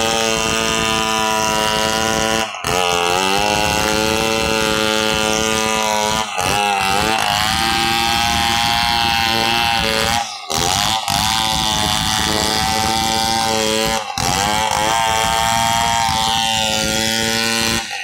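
Two-stroke chainsaw running at high revs, ripping lengthwise along a large acacia log. Its pitch sags and recovers as the chain loads up in the cut. The sound cuts out briefly about every four seconds.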